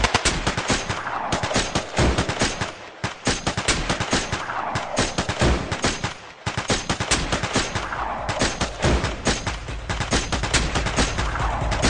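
Continuous rapid machine-gun-style gunfire, with a falling whistle-like sweep repeating about every three and a half seconds.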